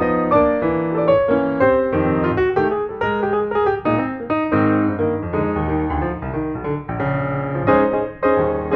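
Background piano music: a steady flow of struck notes, chords and melody over a bass line.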